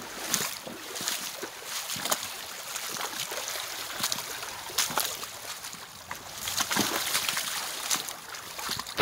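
Shallow river running over cobbles, with irregular sloshing splashes of wader-clad legs wading through the water.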